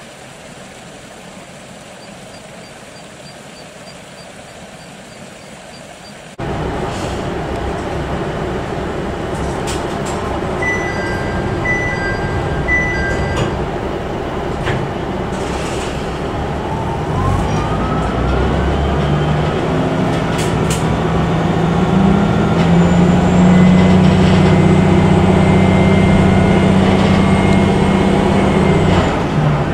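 Diesel railcar heard from inside the passenger cabin, its engine running steadily. A few short electronic beeps sound about halfway through. Then the engine's note steps up with a rising whine as the railcar accelerates, growing to a loud steady drone. This follows a quieter opening of faint outdoor ambience.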